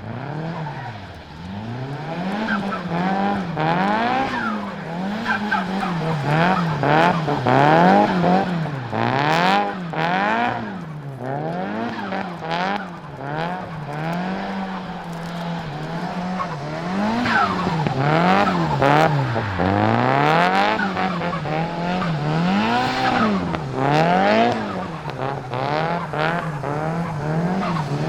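Nissan Silvia S15's turbocharged SR20DET four-cylinder engine revving up and down over and over under hard throttle, with turbo flutter in the moments the throttle snaps shut.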